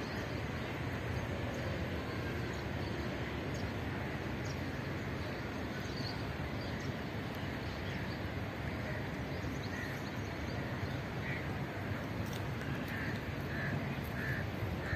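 Crows cawing a few times, mostly in the last few seconds, over a steady outdoor background of wind and distant city noise.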